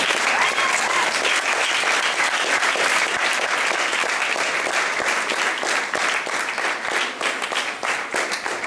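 Audience applauding steadily, a dense patter of many hands clapping that eases slightly near the end.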